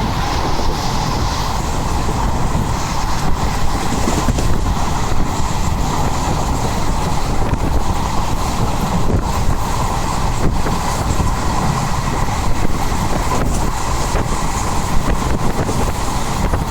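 A train running along the track: a steady rumble with irregular clatter from the wheels on the rails.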